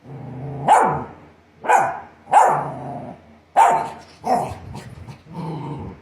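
Australian Shepherd barking: a low growl leads into six sharp barks at uneven intervals, the last one lower and longer.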